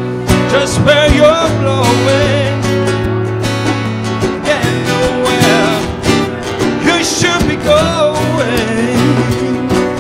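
Live duo of two guitars, one an acoustic, strummed and picked with a man singing.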